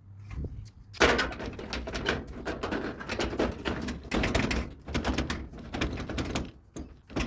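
Sheet-metal top panel of a clothes dryer being set down and worked into place, a steady run of clanks, knocks and scraping that starts with a loud knock about a second in.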